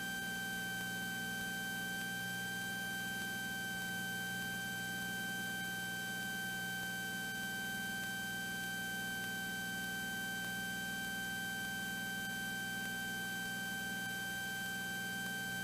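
Steady drone of a Cessna 182T's six-cylinder Lycoming IO-540 engine and propeller at climb power, overlaid by a steady high electrical whine that holds one pitch throughout.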